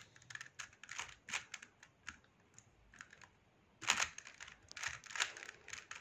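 Plastic 3x3 Rubik's Cube being turned by hand: irregular clicks and clacks as the layers snap round, with the loudest clacks about four and five seconds in.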